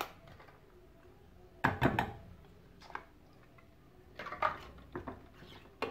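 A metal spoon clinking and knocking against a small stainless-steel saucepan as ingredients are spooned in. There are sharp knocks, the loudest pair about two seconds in, and a few lighter clinks later.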